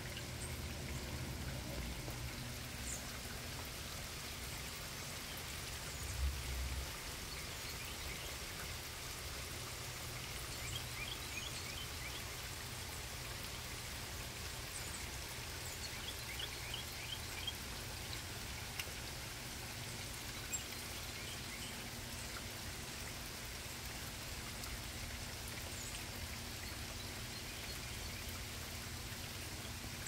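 Steady rain falling on the trees, leaf litter and deck, with small birds chirping here and there through it, in brief flurries. A single low bump stands out about six seconds in.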